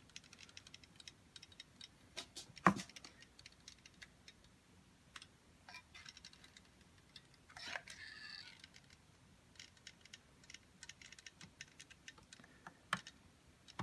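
Caulking gun laying a bead of clear silicone around a plastic charger housing: faint scattered clicks and ticks of the gun and nozzle, with a sharper click about two and a half seconds in and another near the end, and a brief soft hiss just past halfway.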